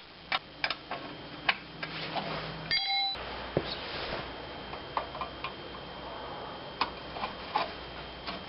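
Scattered light clicks and taps of hand tools on metal parts as the carburetor cover screws are driven back in, with a short beep-like tone about three seconds in.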